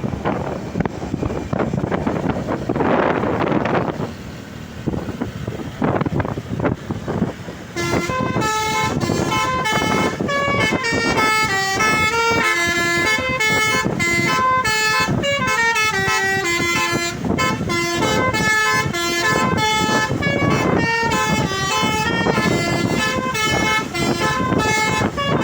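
Wind buffeting the microphone over a passing bus for several seconds. Then a multi-tone "telolet" bus horn plays a continuous melody of changing notes from about eight seconds in.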